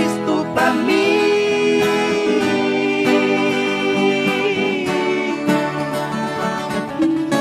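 A viola caipira and an acoustic guitar strumming and picking together in an instrumental passage between verses, with a long held note over them for several seconds.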